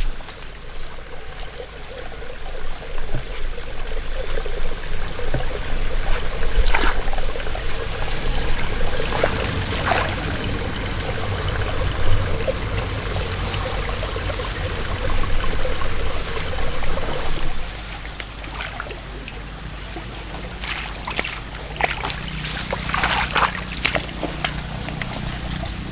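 Water trickling and splashing, with scattered short splashes.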